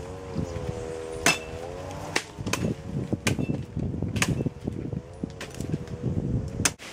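A series of sharp knocks, the loudest about a second in, with rustling of branches, as cacao pods are picked by hand from a cacao tree. A steady hum runs behind them.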